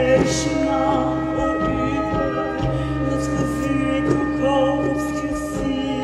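Live acoustic ensemble music: long held drone notes over a steady low bass, a wavering melody line with some singing, and light high percussion strikes about once a second.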